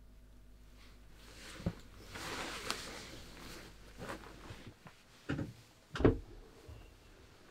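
A rustle, then the handle and sash of a roof window knocking and clunking as it is pushed open, with the loudest clunk about six seconds in.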